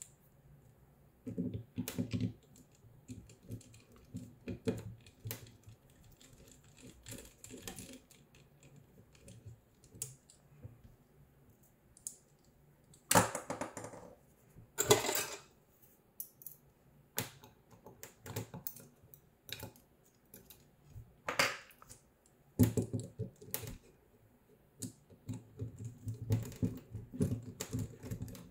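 Scattered small clicks and taps of a screwdriver, small screws and a 3D-printed plastic motor mount being handled, with a few louder rattles in the middle. Near the end, a longer stretch of duller handling noise as a screw is driven into the printed block.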